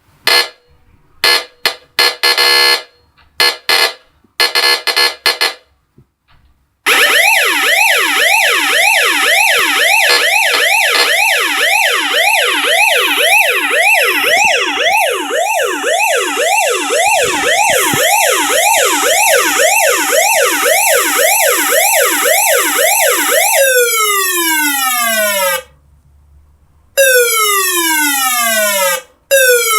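Home-built electronic siren driven by a PIC16F628A microcontroller, cycling through its modes. It gives a series of short harsh buzzing blasts, then a fast yelp sweeping up and down about twice a second for some sixteen seconds, then long falling tones of about two seconds each.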